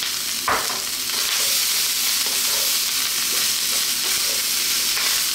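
Cold cooked basmati rice frying in hot oil in a wok over very high heat, with a steady sizzle as it is stirred and scraped with a wooden spatula. A short knock about half a second in.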